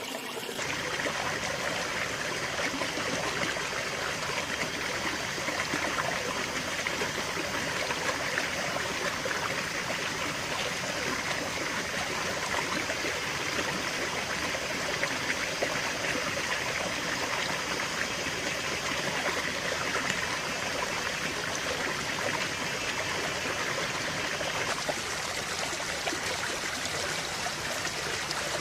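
Small stream running, a steady rush and babble of flowing water that gets louder about half a second in.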